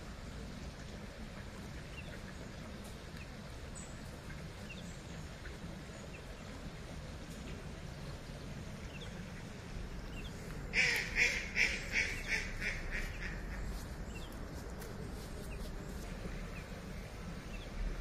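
A duck quacking: a little past the middle comes a quick run of about eight quacks, the first loudest and the rest fading away. Faint chirps of small birds sound over a steady low hum.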